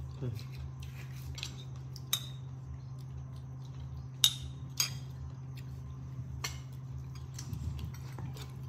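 Metal spoon clinking and scraping against a ceramic bowl as dip is scooped, in scattered sharp clicks, the loudest two a little past the middle, over a steady low hum.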